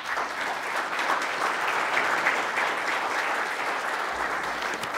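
Audience applauding steadily, starting suddenly and easing off near the end.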